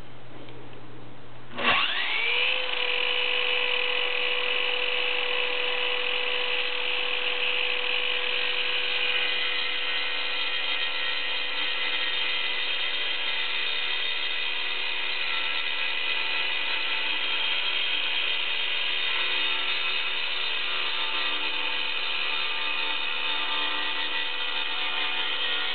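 Circular saw fitted with a diamond masonry blade switches on about two seconds in, winds up to speed within a second, then runs with a steady whine while scoring concrete.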